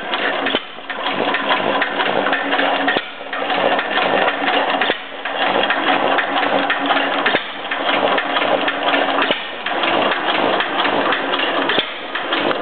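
Gardner No. 1 stationary engine with low-tension magneto ignition running on its first start: a fast, dense mechanical clatter with sharp ticks, the level dipping briefly about every two seconds.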